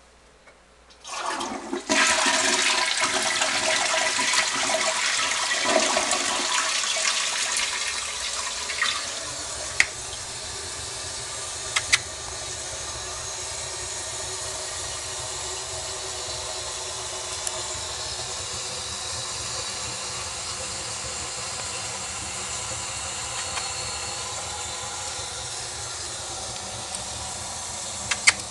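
Toilet flushing: a sudden loud rush of water starting about a second in and lasting several seconds, then settling into a quieter steady hiss of the tank refilling, with a couple of sharp clicks along the way.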